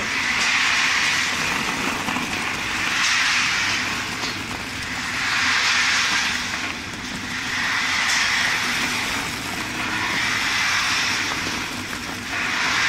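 Caramel popcorn production machinery running: a steady rushing noise that swells and eases about every two and a half seconds.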